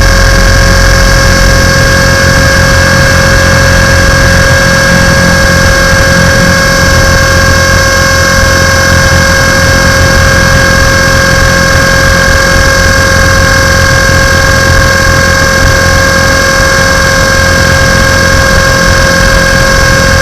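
Tarot 450 electric RC helicopter heard from a camera mounted on it: a steady, loud whine from the motor and drive gears over the buzz of the spinning rotors, holding one constant pitch.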